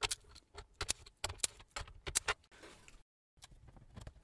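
Irregular small clicks and taps of a screwdriver and fingers on screws, circuit board and plastic case as the groovebox is unscrewed and its board lifted, several clicks a second, broken by a brief dead gap about three seconds in.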